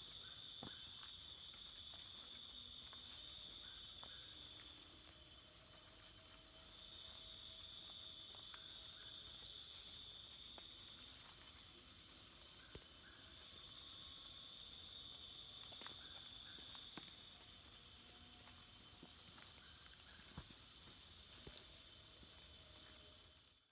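Chorus of rainforest night insects: several steady high-pitched trills layered together, with a faster pulsing chirp higher up through the middle stretch.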